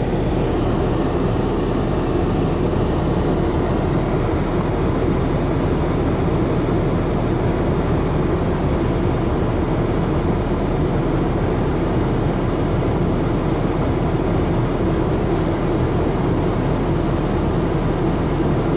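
Steady engine and road noise of a car being driven, an even rumble that holds without change.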